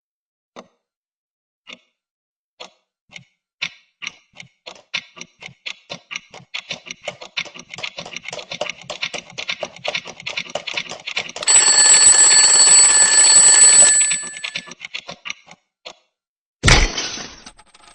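Alarm clock ticking, the ticks sparse at first and speeding up to a rapid tick, then the alarm ringing loudly for about three seconds. The ticking slows and stops, and a sudden loud bang comes near the end.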